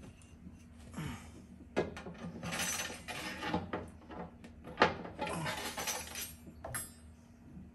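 A long metal dipstick being worked down into a boat's fuel tank and drawn back: two stretches of metal scraping and rattling against the tank fitting, with sharp clicks between them. The loudest click comes about five seconds in.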